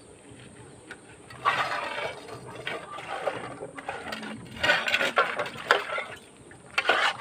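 Metal cooking pots being scrubbed by hand, a scraping rasp in two stretches, with light metallic clinks as the pots knock together.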